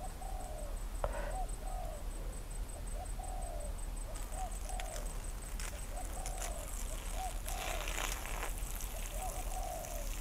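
Spotted doves cooing in repeated short phrases, the caged decoy and a wild dove calling back and forth. From about four seconds in, an intermittent hiss is heard under the coos.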